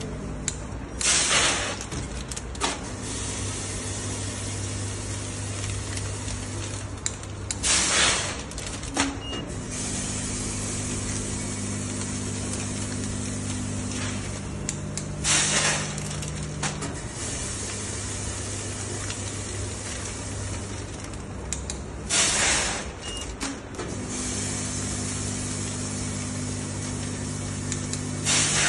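Double-head automatic weighing granule filler running with a steady mechanical hum whose pitch shifts every few seconds. About every seven seconds a short, loud rush of granules drops from the weigh hopper into a foil pouch, five times.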